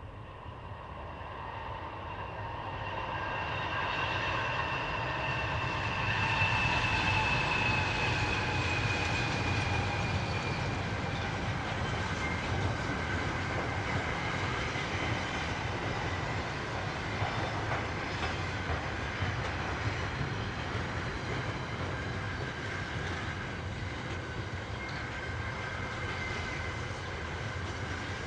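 Container freight train approaching and rolling past: the sound grows over the first few seconds, then holds as a steady rumble and clatter of wagons on the rails. A high whine drops slightly in pitch a few seconds in.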